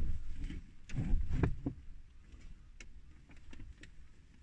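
Knocks and rustling from the phone being handled and repositioned, loudest at the start and again about a second in, followed by a few faint clicks.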